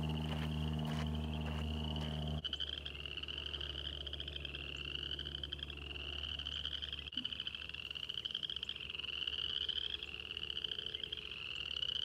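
A loud chorus of frogs calling in the breeding season: many overlapping trills, each about a second long and rising in pitch, repeating without pause. A steady low hum lies under the first two seconds and stops abruptly.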